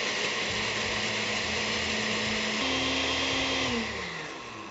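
Countertop blender running, pureeing roasted chiles and tomato into a sauce. Its motor pitch steps up about halfway through, then it is switched off and winds down near the end.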